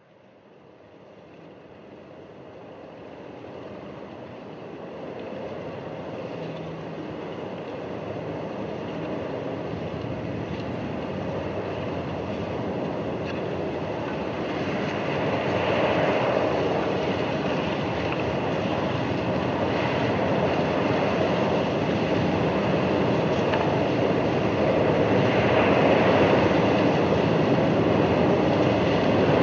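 A steady rushing, rumbling noise fading in slowly from silence and growing louder throughout, part of a sound-design soundtrack.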